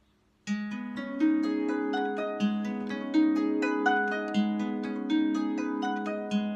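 Harp being played, starting about half a second in: plucked strings ringing on, a low bass note struck again every second or two under a melody of higher notes.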